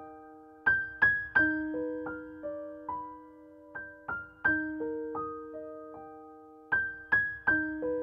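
Background music: a slow, gentle piano melody of single ringing notes that repeats a short phrase about every three seconds.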